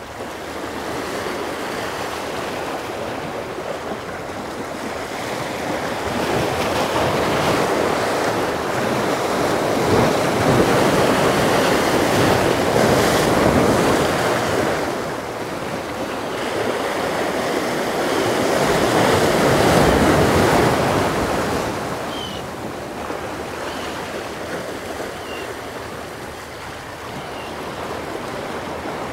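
Surf washing against a jetty, swelling into two long surges and falling back, with some wind on the microphone.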